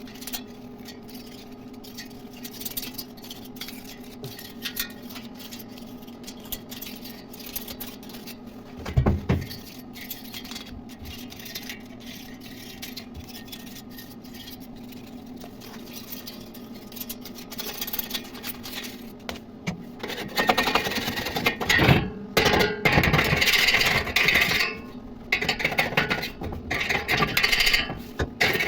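Steel workshop work: scattered clicks and scrapes over a steady low hum, with a single knock about nine seconds in. From about twenty seconds on comes a run of loud, rough scraping bursts, like metal being rubbed or filed.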